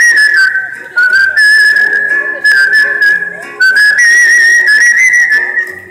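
Opening of the dance music: a high, pure-toned, whistle-like melody of long held, slightly wavering notes over a faint lower accompaniment. The melody steps down and back up in pitch, with a short break about a second in and another just before four seconds, and fades near the end.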